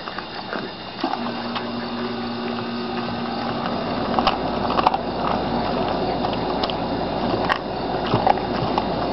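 An American Pit Bull Terrier gnawing and crunching a raw turkey neck, with irregular wet cracks and clicks of teeth on bone, and licking. A low steady hum runs in the background for a couple of seconds about a second in.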